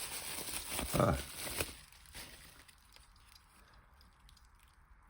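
Packaging rustling as it is handled, with a short vocal sound about a second in. It dies away after about two seconds to faint ticks.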